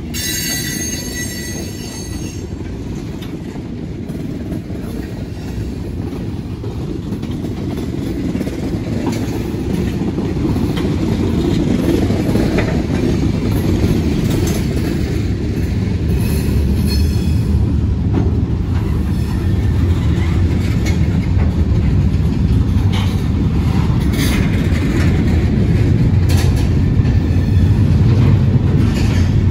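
Freight cars rolling past on a curved track, a steady low rumble of wheels on rail that grows slowly louder. A high-pitched wheel squeal of several tones sounds in the first two seconds, with fainter squeals later.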